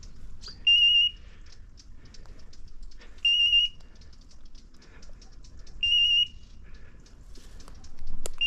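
Electronic beeper collar on a hunting dog sounding a short, high, steady beep about every two and a half seconds, three times, with a fourth starting at the very end. Faint crackling and clicks fill the gaps between beeps.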